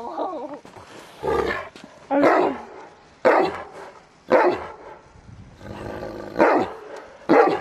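Large long-haired dog barking six times, about once a second, with a longer pause after the fourth bark.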